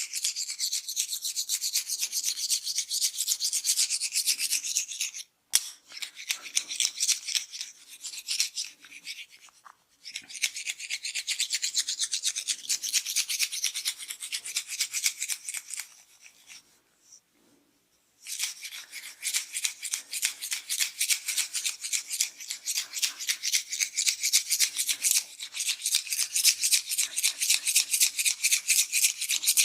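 Fingers rubbing and scratching quickly through hair and over the scalp, a dense run of scratchy strokes. It breaks off briefly twice and pauses for a couple of seconds about two-thirds of the way through.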